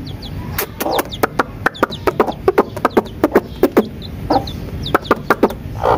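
A mother hen clucking in a quick run of short clucks, about five a second, then a few more spaced out. Faint high peeps from her chick come now and then.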